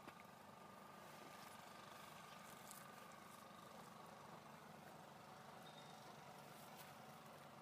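Near silence: faint, steady outdoor background with a few soft clicks.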